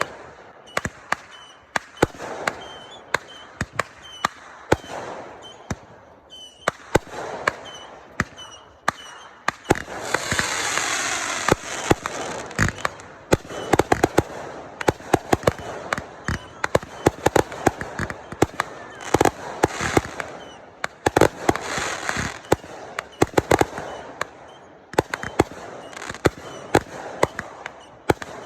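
Fireworks going off: a long run of sharp bangs and pops, many in quick succession. About ten seconds in there is a loud, dense crackling hiss lasting a few seconds, with more crackling bursts after it.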